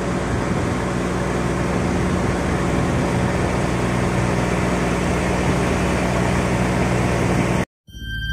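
A fishing boat's engine running steadily at an even drone. It cuts off suddenly near the end.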